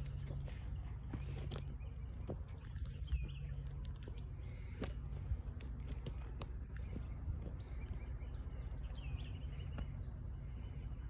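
Outdoor ambience: a steady low rumble with scattered light clicks, and a bird chirping twice, once about three seconds in and once near the end.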